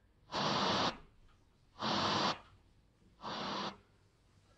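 FM radio tuner of a Honda Breeze car head unit being stepped through the band between stations: three short bursts of static hiss, each about half a second long, with silent gaps between them.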